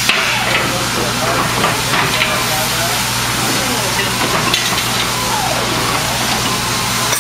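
Steady workshop hiss over a low electrical hum, with faint indistinct voices and a few light taps as aluminium platform sections are fitted and pinned together.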